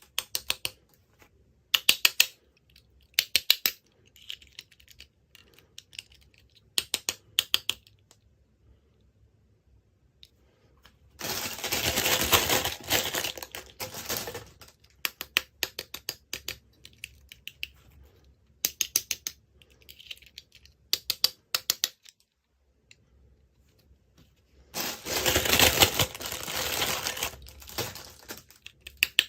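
Small hard plastic toy pieces and packaging being handled, clicking and tapping in quick clusters, with two longer stretches of dense rustling, one about a third of the way in and one near the end.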